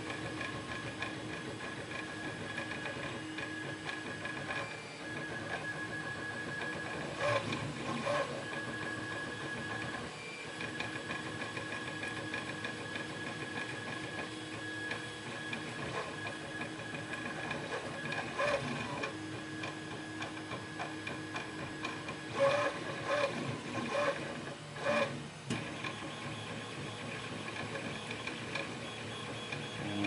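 Steady background hum with a few light clicks and taps of small brass lock parts, key pins and the lock plug, being handled while re-pinning the lock.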